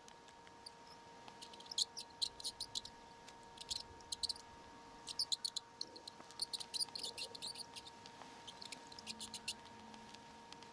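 Recording of mice squeaking, played back to a cat: bursts of rapid, high-pitched squeaks that come in several clusters, with short gaps between them.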